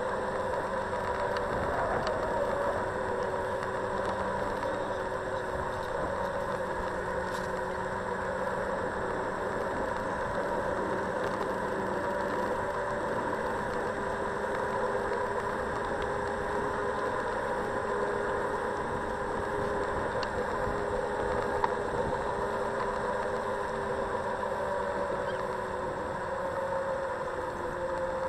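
Xiaomi Mijia M365 electric scooter riding along a paved path. Its hub motor gives a steady whine of a few tones that drift slowly in pitch with speed, over the noise and rattle of the ride picked up by a camera mounted on the scooter.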